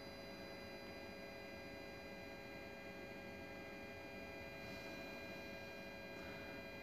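Faint steady hum with several thin, unchanging tones above it, like the drone of electrical equipment or a running heater.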